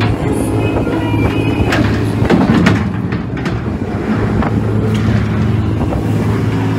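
Crab boat's engine and deck machinery running with a steady low drone, with a few knocks and clanks about two to three seconds in.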